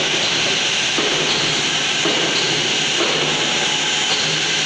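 Steady, loud hiss of factory background noise, with a few faint knocks underneath.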